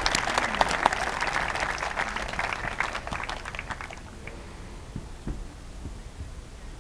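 Spectators applauding, the clapping dying away about four seconds in.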